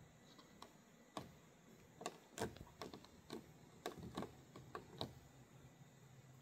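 Faint, irregular clicks of buttons being pressed one after another on a Ford Transit's door-entry keypad, about a dozen presses.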